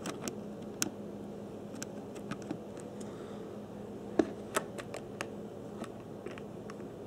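Scattered light clicks and taps of fingers handling a cast-brass HO-scale model steam locomotive on its track, the sharpest about four seconds in, over a steady low hum.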